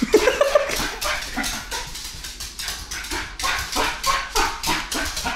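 Small dog yipping and barking in quick repeated bursts, about three a second, while it spins in circles chasing its tail, the way it reacts when excited or scared.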